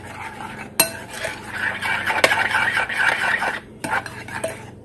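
Metal utensil stirring and whisking a runny egg mixture in a bowl: a wet scraping swish with a few sharp clinks against the bowl, busiest in the middle.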